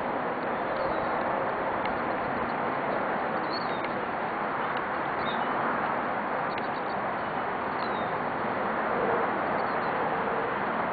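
Steady outdoor background noise, an even hiss, with a few short, faint high bird chirps scattered through it.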